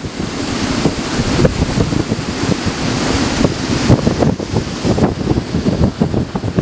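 Gusty mountain-summit wind of about 45 to 50 mph blowing hard across the microphone, buffeting it unevenly.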